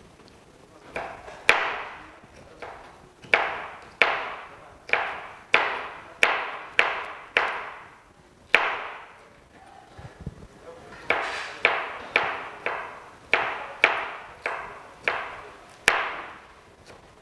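Chef's knife dicing a green bell pepper on a plastic cutting board: sharp knocks of the blade striking the board, roughly two a second, with a pause of about two seconds midway.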